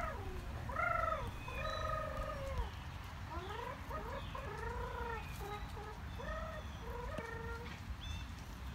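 Short rising-and-falling bird calls, repeated over and over through the stretch, some overlapping at different pitches.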